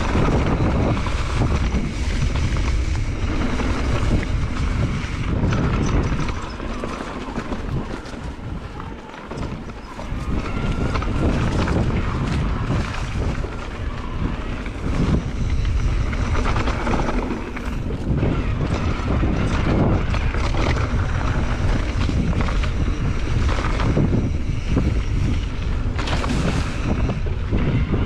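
Wind buffeting the microphone of a mountain biker's camera while riding a trail: a loud, low rumble that eases off for a few seconds about six to ten seconds in, then picks up again.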